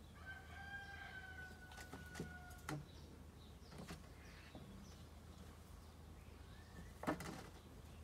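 A rooster crowing once, a long call of steady pitch lasting about two and a half seconds. It is followed by a few short knocks and a sharper knock about seven seconds in.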